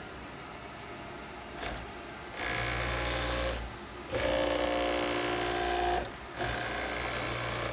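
JMC iHSV57 servo motor spinning the Taig CNC mill's lead screw, driving the table in three fast jog moves of one to two seconds each with short pauses between. It makes a steady whine with a slight shaft vibration, which the owner puts down to a makeshift shaft coupling.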